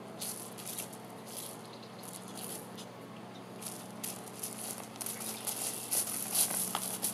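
Irregular soft rustling and scratching in short bursts, coming more often in the second half: a donkey nibbling and rubbing at another donkey's mesh fly mask.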